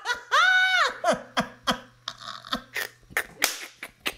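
A high-pitched vocal squeal that rises and falls, then a string of short bursts of laughter.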